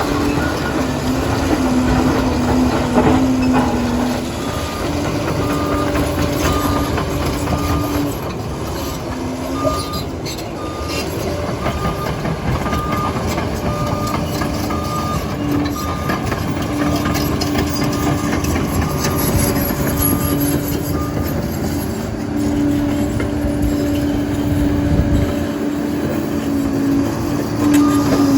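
Liebherr PR 746 crawler dozer working: the diesel engine running under varying load with the steel tracks clanking, and its reversing alarm beeping at a steady rate for much of the time as it backs up.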